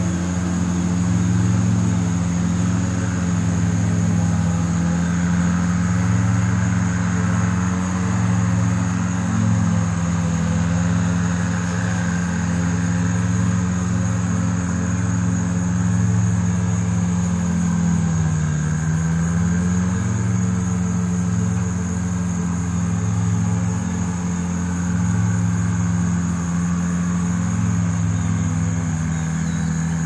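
An engine running steadily with a low, even hum; about halfway through its pitch sags briefly and comes back up.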